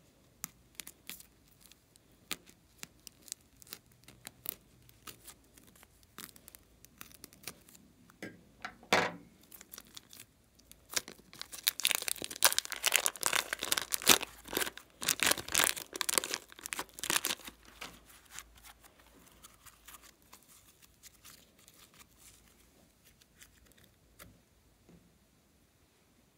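Thin plastic piping bag crinkling and tearing as it is peeled away from a lump of slime, a dense crackling in the middle that lasts several seconds. Lighter clicks and rustles of plastic and slime handling come before and after.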